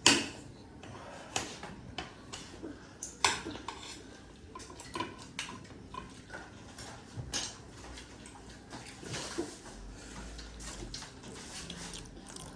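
Cutlery clinking against plates and bowls at a meal: scattered sharp clicks and knocks at an uneven pace, the loudest right at the start and about three seconds in.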